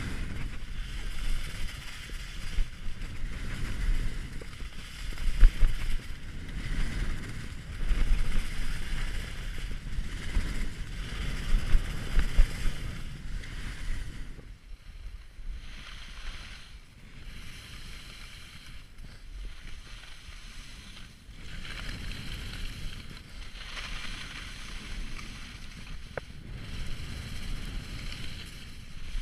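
Wind rushing over the microphone of a skier moving downhill, with the hiss of skis sliding on snow that swells and fades with each turn. It grows quieter about halfway through as the pace eases.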